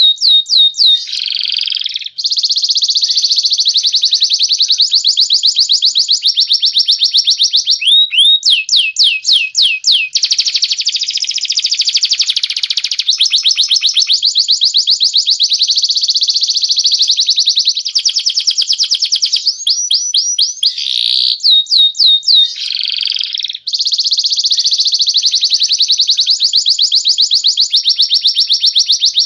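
Bird-song recording of a canary and a cililin (crested jay) singing: long, fast, high-pitched trills alternating with runs of quick repeated sweeping whistles, nearly without a break.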